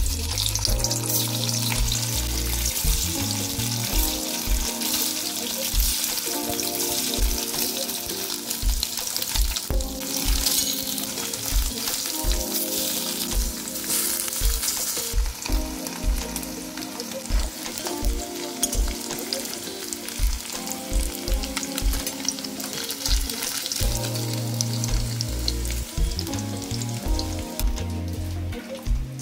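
Paneer cubes shallow-frying in hot oil in a kadai, a steady sizzle throughout, under background music with a regular beat.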